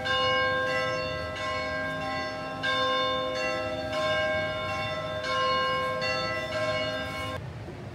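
Bells ringing in a steady sequence, a new stroke about every second and a half, each leaving a rich ringing chord. The ringing stops abruptly near the end.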